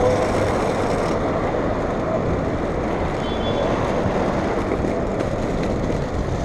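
Steady rolling noise of inline skate wheels on asphalt, mixed with wind on the microphone and passing street traffic.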